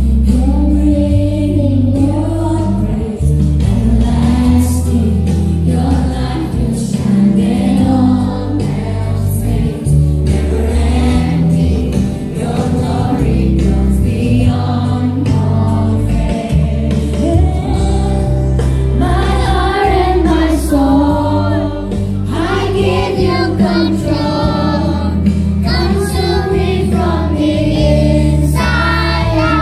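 A song sung by a group: children singing into microphones over an amplified backing track with a heavy, steady bass, and a standing crowd singing along.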